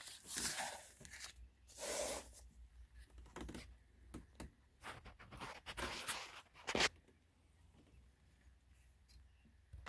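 Handling noise: an old cardboard box and a cloth sheet being moved about, rustling and scraping, with a few sharp clicks about six to seven seconds in.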